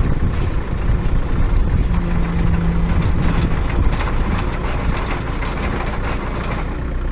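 A Redlands baler running with a steady engine drone and scattered mechanical clicks. A humming tone holds from about two seconds in for a second and a half.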